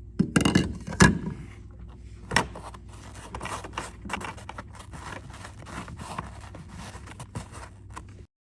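Handling noises: irregular scrapes, clicks and knocks, the loudest two a little under a second apart near the start, over a steady low hum; the sound cuts off suddenly near the end.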